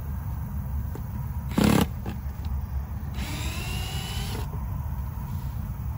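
Cordless drill driving a screw into wood, its motor whining and rising in pitch for about a second and a half, near the middle. Before that, about a second and a half in, comes one brief, louder knock.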